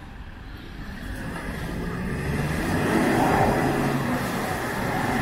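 Kia Sorento SUV's engine pulling under load as it climbs out of a muddy ditch, building up over the first few seconds and then holding loud.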